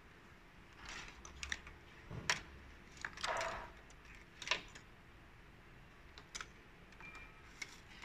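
Irregular light clicks, taps and rustles of hands handling wiring and parts in a car's engine bay. They bunch together in the first half, with a couple of single clicks near the end.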